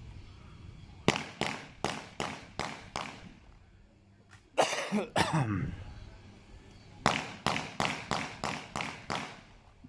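Two strings of gunshots from a firearm fired in quick single shots at a target, about three shots a second: six shots, a pause, then about eight more. Each shot decays briefly. A short voice sounds between the two strings.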